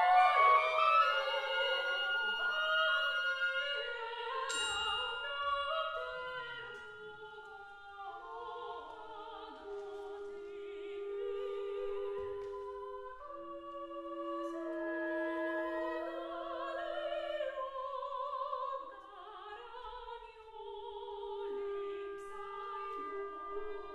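Two sopranos singing the syllables of a long nonsense-sounding Ancient Greek word, with a clarinet: loud and busy at first, with a single bright glockenspiel stroke about four seconds in. From about the middle the voices turn soft and the clarinet plays long held notes beneath them.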